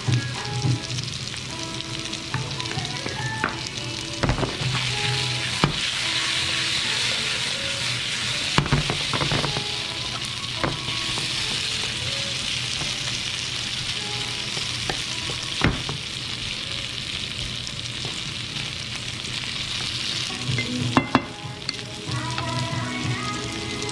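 Cubed potatoes sizzling as they fry in a nonstick frying pan, stirred with a wooden spatula that knocks against the pan a few times. The sizzle grows louder about five seconds in.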